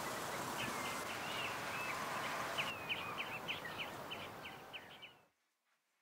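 Outdoor ambience: steady background noise with small birds chirping, the chirps coming in a quicker run after about two and a half seconds, all fading out about five seconds in.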